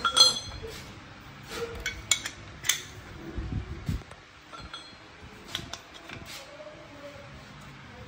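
Scattered light metallic clinks and taps, as of tools and parts being handled, with a dull low thud about three and a half seconds in.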